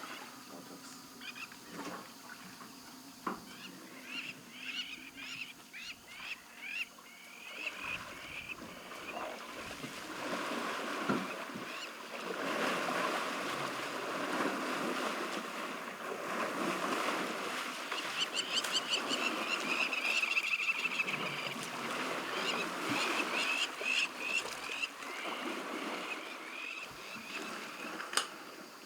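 Wild birds calling in runs of short, quick chirps, over a rushing, splashing water-like noise that swells about twelve seconds in.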